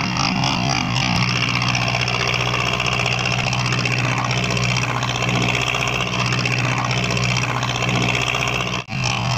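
Four-cylinder Mitsubishi 4D31 diesel of a small wooden cargo boat running steadily under way, a low even drone, mixed with the rush and splash of the bow wave breaking along the hull. The sound cuts out for an instant near the end.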